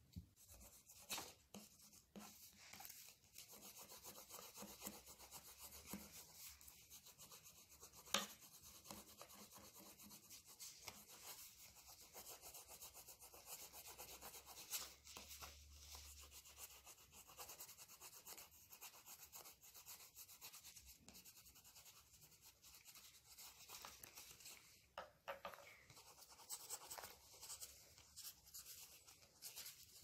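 Crayon rubbing back and forth over paper as a large area is coloured in: a faint, steady, scratchy rasp, with a sharp click about eight seconds in.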